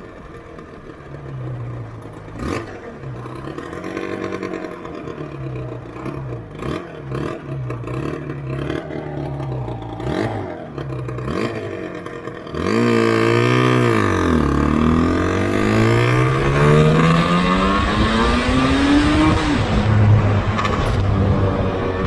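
Yamaha RZV500R's two-stroke V4 engine, first at low revs with small throttle blips and scattered sharp pops. About twelve seconds in it opens up loudly: the revs rise, dip once, then climb steadily for several seconds before dropping near the end.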